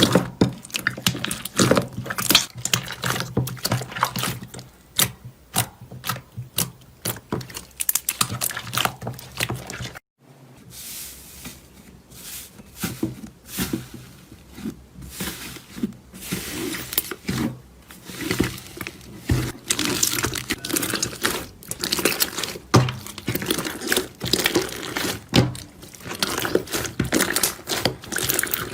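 Slime being squeezed and poked by hand, making a steady string of wet clicks and pops. The sound cuts out briefly about ten seconds in, then the squishing goes on.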